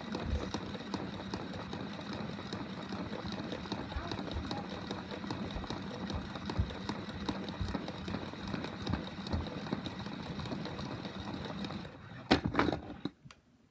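Small electric motors of a BB-8 toy robot whirring steadily with rapid fine clicking as it spins its head. Near the end a few loud knocks as it is handled, and the whirring stops.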